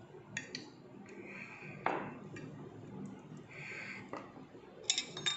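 Light clicks and scrapes of a utensil against a glass cake plate as a slice of chocolate cake is cut and lifted out. There are two short scrapes, a sharper clink about two seconds in, and a quick flurry of clicks near the end.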